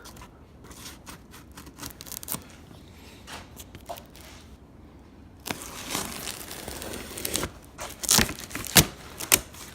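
Packaging being torn open and crinkled as a shipping box is unpacked: scattered small rustles and clicks, then denser, louder tearing and crinkling from about halfway through.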